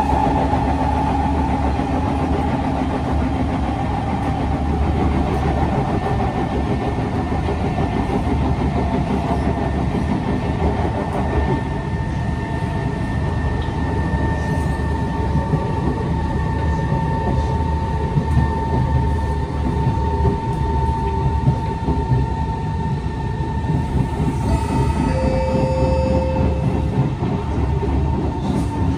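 Kawasaki C151 metro train running, heard from inside the car: a continuous rumble with rapid, regular pounding from flat spots on the wheels. A steady whine joins it about a third of the way in.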